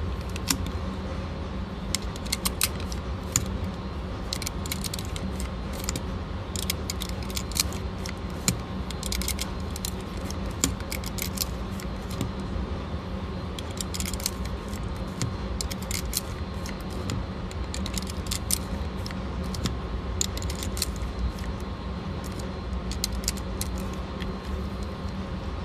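Pistol cartridges being pressed one by one into a handgun magazine: a long run of small, irregular metallic clicks over a steady low hum.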